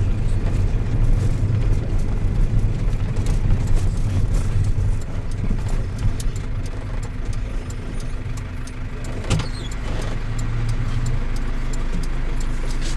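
Cabin sound of a minibus: engine and road rumble while moving, easing off after about five seconds as it slows to a stop, then the engine idling with a steady hum. A single sharp click about nine seconds in.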